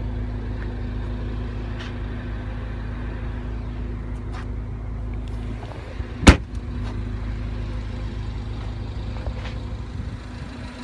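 A steady low mechanical hum with a steady tone in it, the sound of a vehicle. About six seconds in there is one sharp knock, the loudest sound. The deepest part of the rumble eases just before it.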